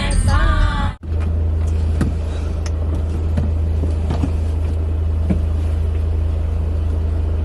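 Background music with singing for about the first second, then a sudden cut to the steady low rumble of a running car, with a few faint clicks.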